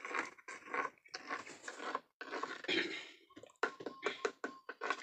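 A metal spoon stirring a frothy milk drink in a clay pot, scraping against the pot's sides in irregular strokes. It gives a few sharper clinks with a brief ring nearer the end.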